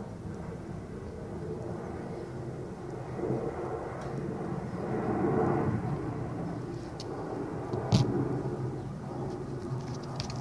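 A low engine drone, steady with a swell near the middle, with one sharp click about eight seconds in.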